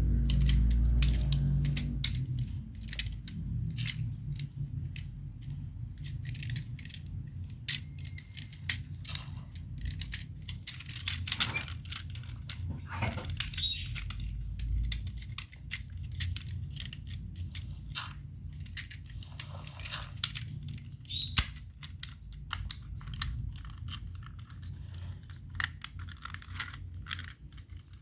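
Hard plastic parts of a small transforming toy robot car clicking and snapping as it is handled, in many irregular small clicks over a low steady hum.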